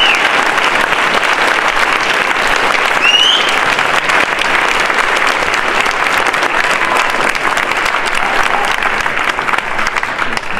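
Large audience applauding steadily after a speech, with a short rising whistle about three seconds in; the clapping begins to die away near the end.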